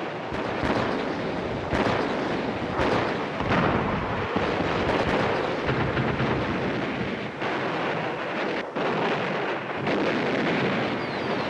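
Heavy naval guns firing in a bombardment: booms every second or so over a continuous rolling rumble.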